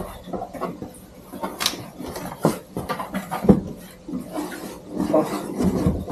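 Cardboard shipping box being opened by hand: flaps rustling and folding back, with several sharp knocks and scrapes of cardboard.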